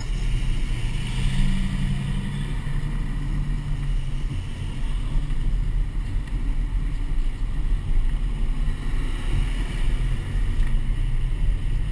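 Car driving slowly, its engine a steady low rumble mixed with wind noise on an outside-mounted camera's microphone.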